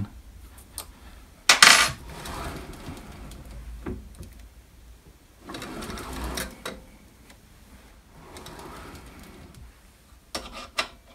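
A sharp metallic clink about one and a half seconds in, followed by three soft sliding, rubbing passes as the drill press quill is moved up and down by hand with its lock slightly on. A few light clicks come near the end.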